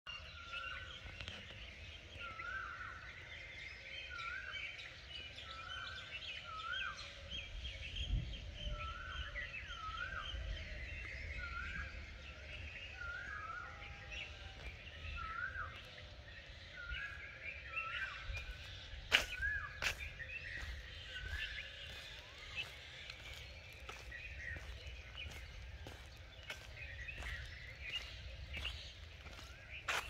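Morning chorus of many birds chirping and twittering, with one bird repeating the same short rising-and-falling call about once a second through the first half. A low rumble runs underneath, and sharp clicks come in the second half.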